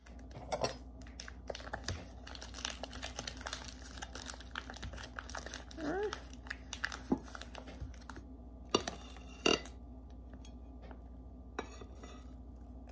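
Plastic bread bag crinkling and rustling as a bagel is handled and pulled out, with scattered small clicks, then a couple of louder knocks and a bite into the bagel near the end.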